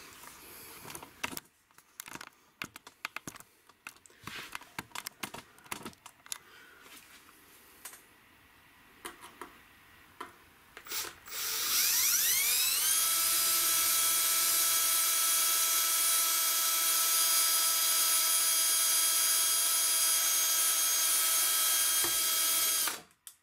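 Clicks and knocks of handling, then a Milwaukee cordless drill spins up with a rising whine about halfway through. It runs at a steady high speed for about ten seconds, driving a self-tapping screw into an aluminium bar, and cuts off suddenly near the end.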